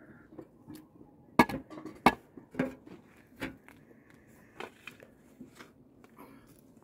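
Mattock striking stony earth, about five sharp blows with the two loudest close together in the first half.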